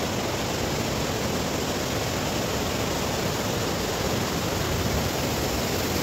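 Fast river water rushing over rapids as the Unica flows out of the cave mouth: a steady, even rush of whitewater.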